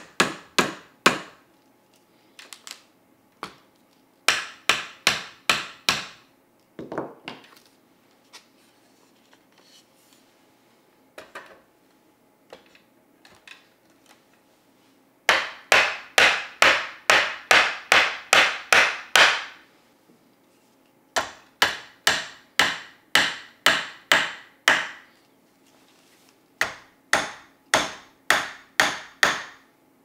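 Rubber mallet striking a white-painted wooden furniture frame, tapping dowel joints together. It comes in runs of quick, even strikes, about three a second, with short pauses of handling between runs.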